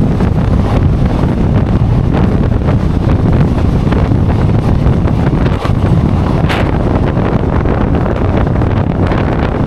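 Wind rushing over the microphone over the steady rumble of a moving passenger train.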